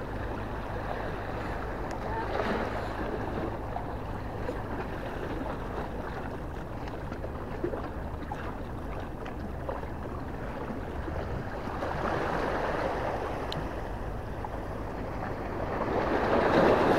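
Sea water washing against breakwater rocks, with wind rumbling on the microphone. The wash swells louder a few times, most strongly near the end.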